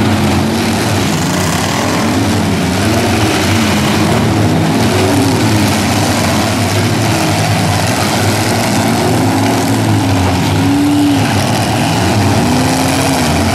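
Several demolition derby pickup truck engines running loud, revving up and down over and over while the trucks are jammed together pushing against each other.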